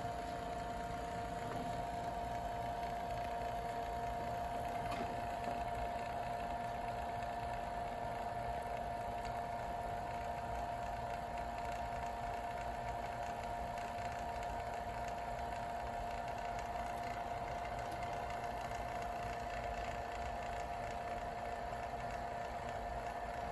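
Small electric buzzer sounding a steady tone inside a glass bell jar as the air is pumped out, heard over the low, even running of an electric vacuum pump. The thinning air in the jar carries the buzz less well.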